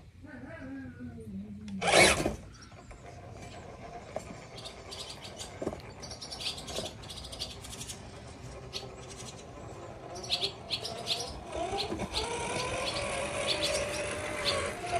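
Redcat Gen 9 RC crawler's Hobbywing Fusion Pro motor and geartrain whining as the truck climbs, the pitch falling in the first two seconds and rising again near the end. A loud thump about two seconds in, and birds chirping in between.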